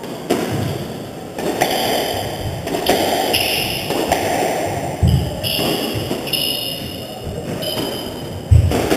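Squash rally: the ball cracking off rackets and walls about once a second, echoing in the enclosed court, with shoes squeaking on the wooden floor and a couple of heavy thuds.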